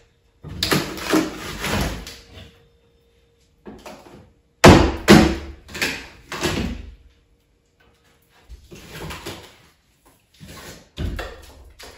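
Drywall being pried and pulled off a wall frame during demolition: bursts of cracking, scraping and falling pieces knocking down, separated by short pauses. The loudest crash comes about four and a half seconds in, followed by a few more hits close together.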